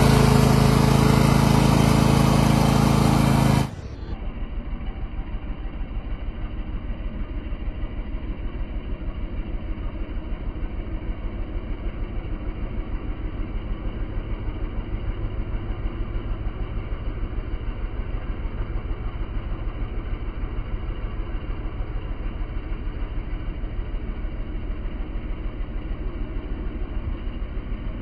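2005 Huskee LT4600 riding lawn mower's engine running. It is loud and close for the first few seconds, then suddenly quieter and duller about four seconds in, settling into a steady, evenly pulsing run as the mower is driven.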